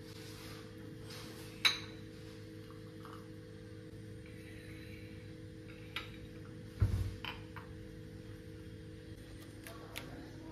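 Hot water poured from an enamel kettle into a ceramic cup, ending in a sharp clink about a second and a half in. Then a few knocks and clinks as a drinking glass and crockery are handled on the kitchen counter, over a steady low hum.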